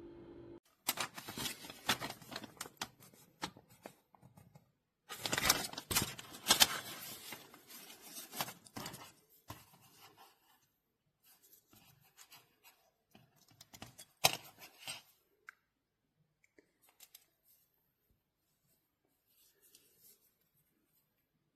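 Close handling noise: rustling, scraping and clicking in three bursts that thin out to a few faint ticks in the second half.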